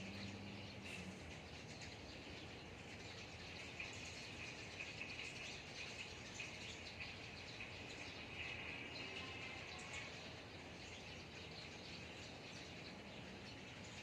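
Garden ambience of small birds chirping over a steady insect buzz, the buzz growing louder for about a second and a half some eight seconds in.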